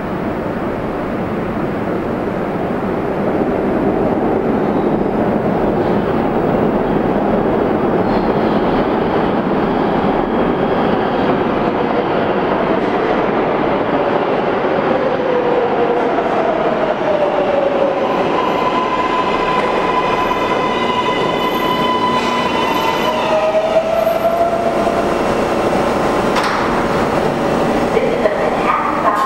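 New York City subway L train arriving at an underground station: the wheel and track rumble builds over the first few seconds and stays loud. Later a falling squeal and a steady motor whine come in as the train slows to the platform.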